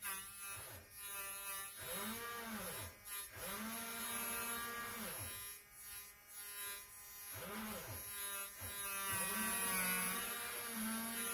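Mouth-made engine noises for toy demolition-derby cars: buzzing, humming revs whose pitch swells up and falls back again and again, settling into a steadier idle near the end.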